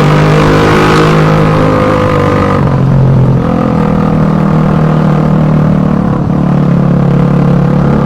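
Suzuki Satria FU 150 single-cylinder four-stroke motorcycle engine running, its exhaust note loud and steady, easing slightly in pitch about three seconds in and then holding steady.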